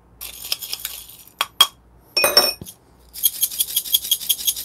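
A metal spoon clicking against a stainless steel dosing cup of coffee beans and then clinking into a small glass, followed from about three seconds in by the beans rattling fast and evenly, about five shakes a second, as the covered cup is shaken. The shaking spreads a single drop of water over the beans (the Ross droplet technique) to cut static in grinding.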